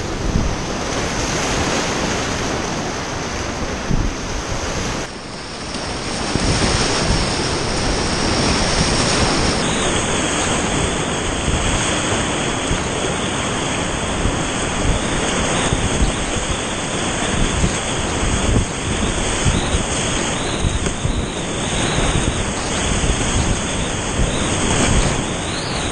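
Whitewater rapids rushing loudly around a kayak in the current, a steady dense wash of churning water with splashing close to the microphone.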